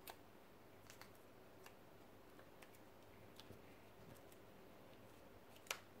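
Near silence broken by a few faint clicks and taps of sleeved trading cards being handled on a wooden table, with one sharper tap near the end.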